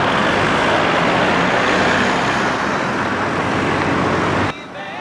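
Loud, steady noise of a motor vehicle or road traffic running close by, which cuts off suddenly about four and a half seconds in.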